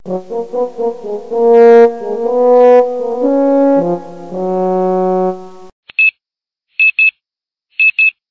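A short phrase of brass music, quick notes and then longer held notes, stopping about six seconds in. Then an alarm clock beeping in quick double beeps, about once a second.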